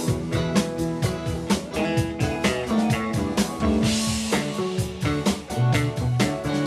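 Rock band playing an instrumental passage: electric guitar over bass and a steady drum-kit beat, with a cymbal crash about four seconds in.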